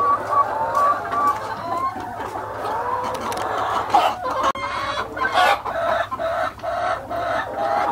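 A flock of laying hens clucking and calling, many overlapping calls at once, with scattered sharp clicks.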